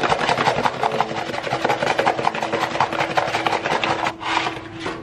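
Baking soda shaken out of a cardboard box onto strawberries in a bowl: a fast, dense rattle of small clicks that eases off about four seconds in, with one last short shake.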